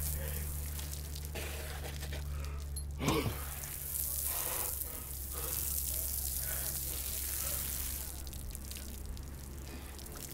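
Outdoor shower water running and splashing onto a man's head and the wet concrete. A short falling groan about three seconds in.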